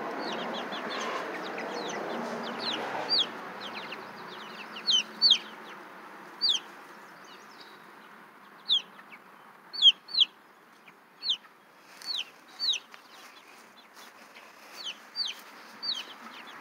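Young chicks peeping: short, high-pitched calls that slide downward, often in quick pairs, repeating every second or so.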